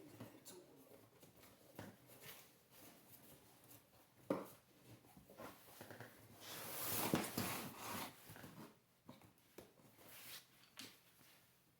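Bicycle tire being worked onto a wheel rim by hand: rubber rubbing and scraping against the rim, with a sharp snap about four seconds in and a louder stretch of rubbing from about six to eight seconds.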